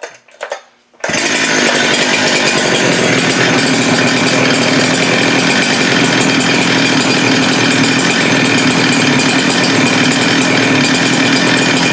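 Holzfforma G395 two-stroke chainsaw engine, freshly fitted with a new piston, comes in abruptly about a second in and runs loud and steady at an even speed. The owner judges it to be running a little rich.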